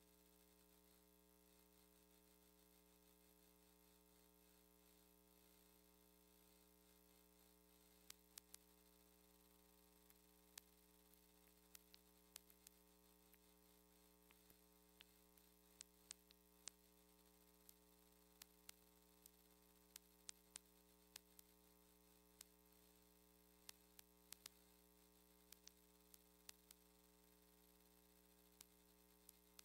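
Near silence: a faint steady electrical hum, with scattered faint clicks from about eight seconds in.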